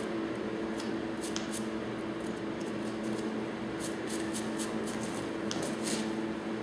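Hoof pick scraping dirt out of a horse's hoof in short, scattered strokes, over a steady low hum.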